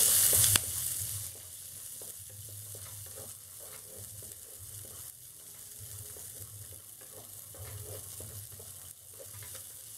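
Wooden spatula stirring and tossing cashews, green peas and raisins in a little hot ghee in a frying pan: a light sizzle with irregular soft scrapes and clicks. A louder hiss in the first half-second drops away.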